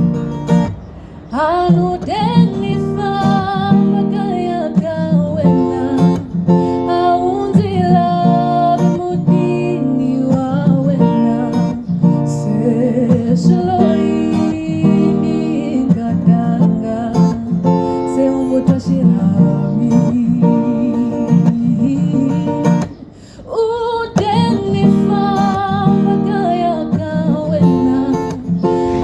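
A song with plucked, strummed guitar and a singing voice, played loud and steady, with short drops in level about a second in and again near the end.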